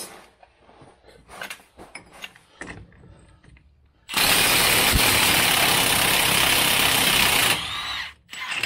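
Milwaukee FUEL cordless impact wrench on a Dana 44 rear axle's pinion nut: a few light clicks as the socket is fitted, then the wrench runs loudly and steadily for about three and a half seconds, breaking the nut loose, and eases off for a moment before stopping.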